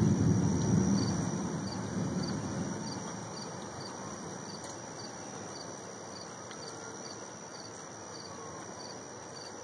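Low rumble of thunder dying away over the first few seconds. Under it and after it, a cricket chirps steadily about twice a second.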